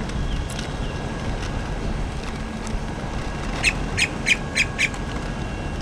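A bird gives five quick, sharp chirps in a row, about three per second, over a steady wash of wind and surf.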